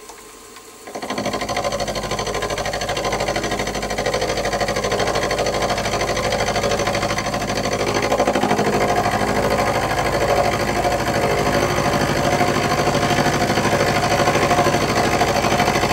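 Milling machine's long-series end mill cutting across a cast-iron vise body: a steady machining sound with a fast, even rhythm from the cutter, coming in sharply about a second in.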